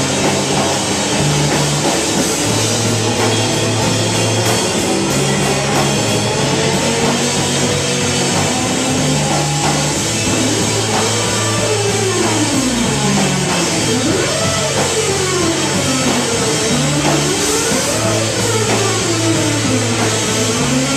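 Live rock band playing an instrumental passage on electric guitars and drum kit, over a stepping bass line. From about halfway through, a tone sweeps up and down in pitch again and again.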